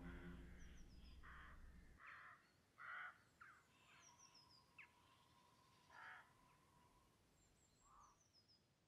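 Faint crows cawing several times, spaced irregularly, with a small bird giving a few short runs of high falling chirps. The tail of cello music fades out in the first two seconds.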